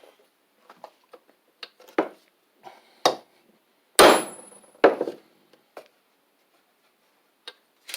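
Hammer blows on a bolt used as a drift, driving the camshaft pin out of a Briggs & Stratton WMB small-engine block. There are four sharp metal strikes about a second apart, the loudest near the middle with a brief metallic ring, and light clinks in between.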